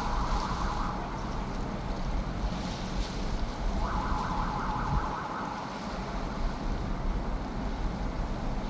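A warbling, siren-like tone sounds briefly at the start and again for about a second and a half near the middle, over a steady low rumble.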